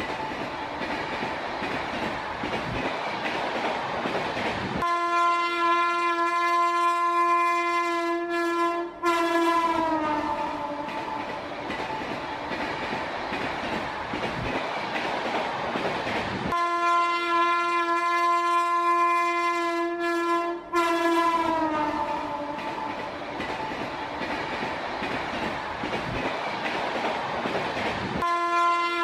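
Train horn sounding in two long blasts of about four seconds each, the pitch sagging as each ends, with a third blast starting near the end. Underneath is the steady rumble and clatter of a passing train.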